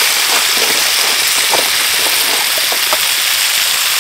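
Live crabs sizzling in a hot wok over a wood fire: a steady high hiss with scattered small crackles and pops.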